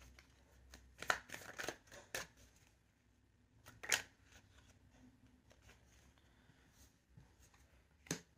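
A tarot deck being shuffled by hand, the cards giving soft slapping clicks. There is a quick run of clicks between one and two seconds in, a sharper slap about four seconds in, and another near the end.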